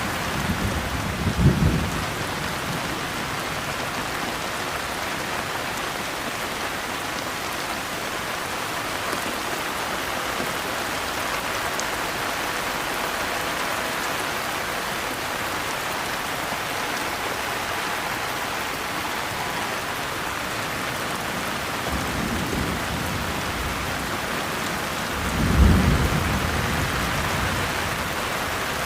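Steady heavy rain falling, with two low rolls of thunder: a short one about a second in and a longer, louder one near the end.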